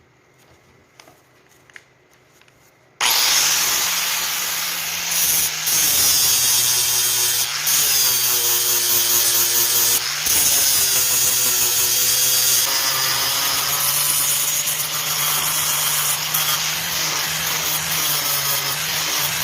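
Electric power tool switched on about three seconds in and running steadily under load, a constant motor hum under a rough abrasive noise, with a few brief dips as it is eased off the work.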